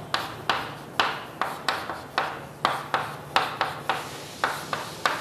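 Writing on a board: a quick series of short, sharp strokes and taps, about three a second, as a structure is written out. A faint steady low hum sits underneath.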